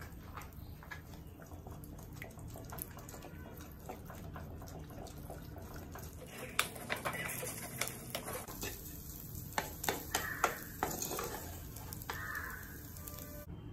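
Eggs frying in a metal kadai as a wooden spatula breaks them up and scrambles them: scraping and clicking of the spatula against the pan, with a cluster of sharper knocks in the second half, over a steady low hum.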